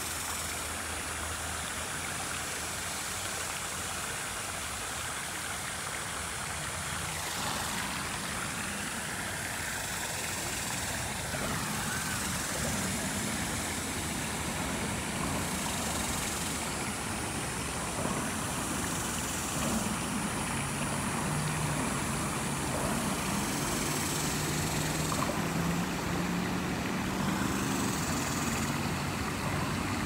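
Traffic on a highway overpass droning over the running water of a shallow creek. A low engine hum stands out in the last third.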